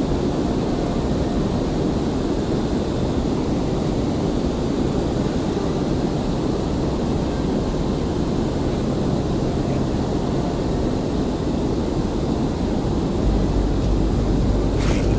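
Boat motor running steadily at trolling speed, a low hum under wind and water noise. The low rumble grows stronger near the end.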